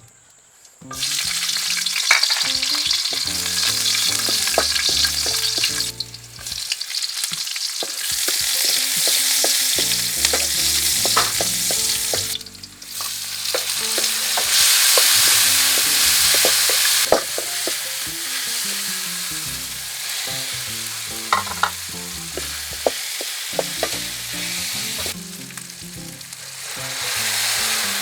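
Food sizzling in hot oil in a pan while being stirred, with scattered clicks and scrapes of the utensil against the pan. The sizzle drops out briefly a few times, then resumes.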